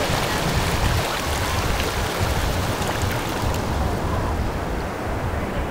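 Shallow surf washing up over wet sand at the water's edge: a steady rushing of water that eases a little near the end.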